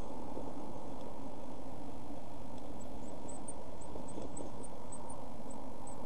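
A steady low rumbling noise underlies everything. Partway through comes a run of about a dozen short, very high, thin peeps from week-old blue tit chicks in the nest box, with a few faint rustles.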